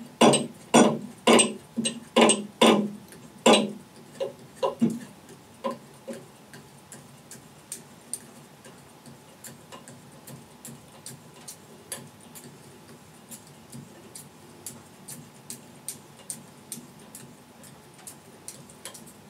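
Bowstring serving tool being turned round and round the string, clicking once per turn as the serving thread is wrapped on: sharp clicks about two a second for the first few seconds, then softer, faint regular ticks.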